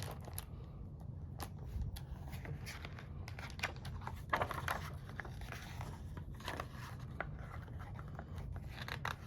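Faint rustling and small clicks of a picture book's paper pages being handled and turned, over a low steady room hum.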